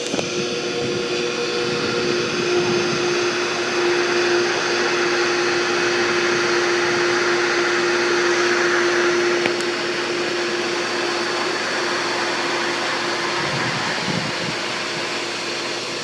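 Pool pump motor running loudly, a steady hum over a rushing whir; a noise like this can be the sign of a shaft seal or bearings starting to go out.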